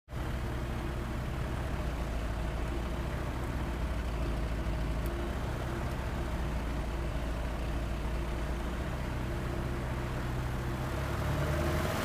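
Sky Arrow light aircraft's Rotax 912 flat-four engine running at a rough idle, steady, picking up slightly near the end.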